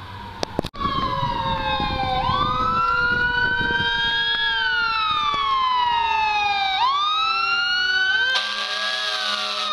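Fire truck siren wailing in slow sweeps that rise and fall over several seconds. A steady, buzzy air horn blast cuts in about a second before the end.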